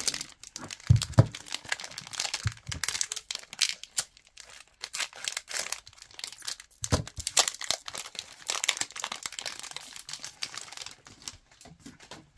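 Trading-card booster pack wrapper being worked open by hand: irregular crinkling and crackling of the plastic wrapper as it is torn, with a couple of dull thumps about a second in.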